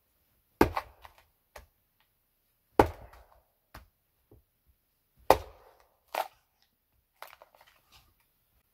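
Hatchet splitting firewood on a stump chopping block: three heavy strikes about two and a half seconds apart, each followed by a brief clatter of wood. A sharper strike and a run of lighter knocks of wood come near the end.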